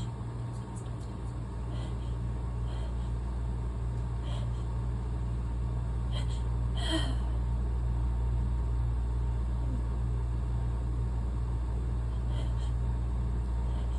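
Steady low rumble throughout, with a few faint clicks and one brief vocal catch about seven seconds in, from a woman straining to hold back a sneeze.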